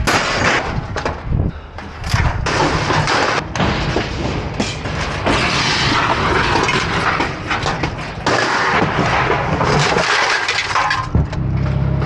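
Scrap steel being thrown from a pickup bed onto a scrap pile: sheet-metal appliance panels, conduit and cable clattering and crashing in a continuous run of impacts.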